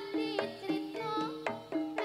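Live jaranan music from a Javanese gamelan ensemble: hand-drum strokes and repeating metallophone notes under a wavering high melody line.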